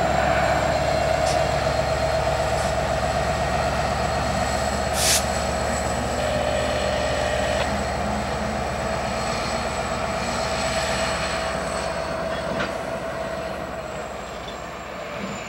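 Norfolk Southern GP33ECO diesel locomotive running steadily as it pulls away, its engine drone slowly fading, with a steady high wheel squeal over it. A single sharp clank about five seconds in.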